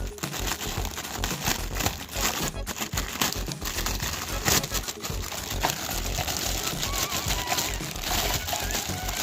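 Crinkling and rustling of packaging, with irregular clicks of small plastic parts being handled. Faint background music.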